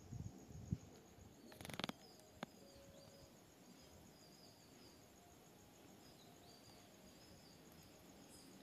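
Quiet background with faint bird chirps, and a few soft knocks and a brief rustle within the first two seconds.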